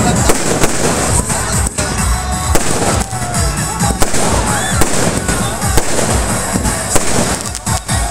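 Aerial fireworks bursting in quick succession: a dense, unbroken run of bangs and crackles, several reports a second.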